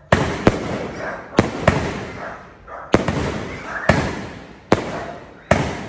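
Dragon Fireworks 'Dragon's Crimson Rebirth' 16-shot cake firing aerial shells. It gives a string of sharp bangs, about eight in all, each trailing off in a crackling hiss.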